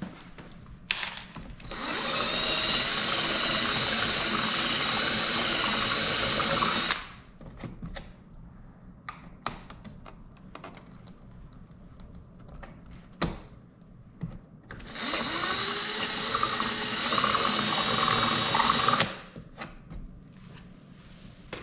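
A handheld power tool runs in two bursts of about five seconds each, the first about two seconds in and the second about fifteen seconds in. A few sharp clicks and knocks from handling come between the bursts.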